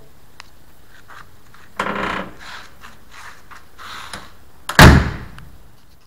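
Toyota Land Cruiser FJ45 door being worked: a few clicks and a rattle of the latch and lever handle, then the steel door shut with one heavy thud about five seconds in.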